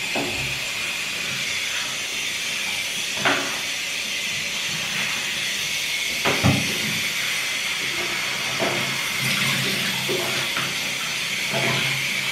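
Handheld shower head spraying water onto hair, rinsing it: a steady hiss of spray, with a couple of brief knocks about three and six seconds in.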